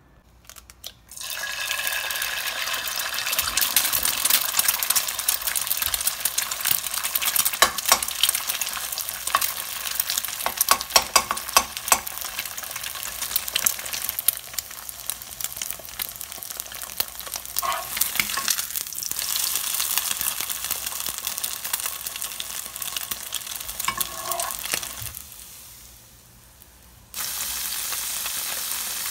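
Eggs frying in hot oil in a nonstick pan, a steady sizzle dense with sharp crackles and pops. Near the end, after a brief drop, the sound switches abruptly to a steadier sizzle of tofu cubes pan-frying in oil.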